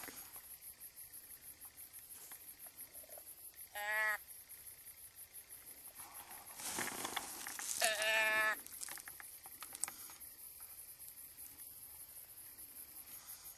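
Hand-held deer call blown twice: two short, pitched bleats about four seconds apart, the second a little longer, calling whitetail deer back toward the stand. A rustle of movement comes just before the second call, over steady cricket chirring.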